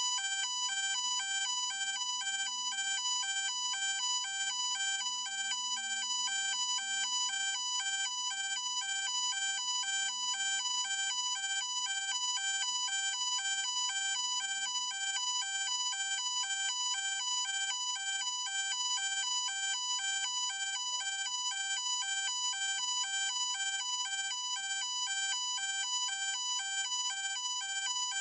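Electronic ambulance siren sounding a rapid two-tone hi-lo pattern, alternating evenly between two pitches without pause.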